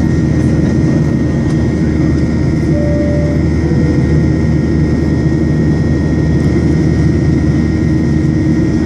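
Boeing 737-800's CFM56-7B jet engines heard from inside the cabin during the climb after takeoff: a steady, loud rumble with a thin steady whine on top. About three seconds in, a short two-note falling tone sounds over it.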